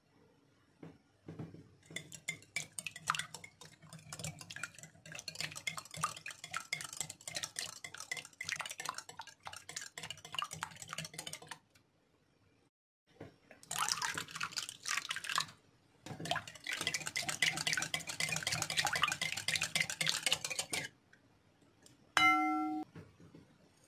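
Wire whisk beating raw eggs in a glass bowl: rapid scraping and clicking against the glass in two long spells, with a pause of about two seconds between them. Near the end, one short ringing clink of the glass.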